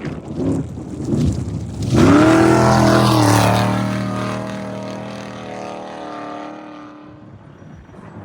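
Off-road race vehicle's engine at full throttle, suddenly loud about two seconds in as it accelerates past with a rising pitch, then fading away as it races off.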